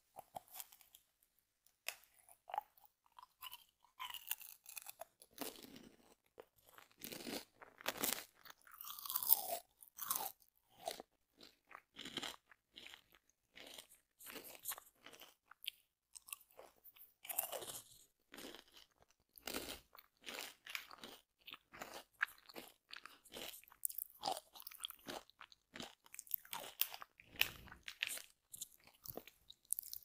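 Close-miked chewing of crunchy snacks, with many sharp, irregular crunches.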